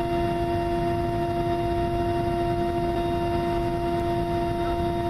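Aircraft engine drone heard inside the cabin: a steady low rumble with a constant hum of several pitched tones.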